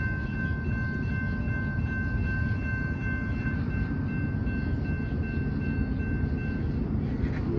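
Low rumble of an approaching BNSF freight train, slowly growing louder, with thin steady high-pitched tones over it that stop about a second before the end.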